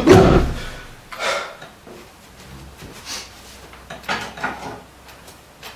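Household rummaging: a burst of loud thumps at the start that dies away within the first second, then a few separate short knocks and rustles of cupboard or door handling.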